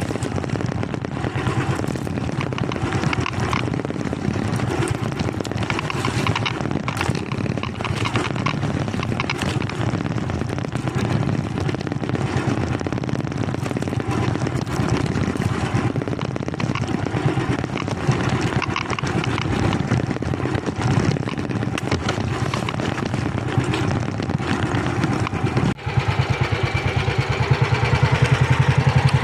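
A small engine running steadily. Near the end it cuts out for a moment, then runs louder and more evenly.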